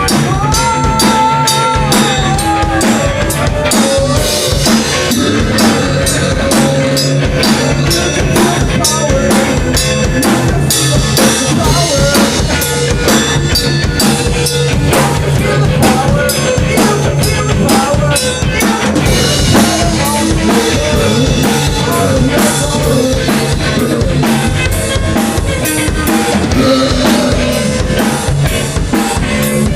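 Band music with a drum kit keeping a steady beat over a bass line.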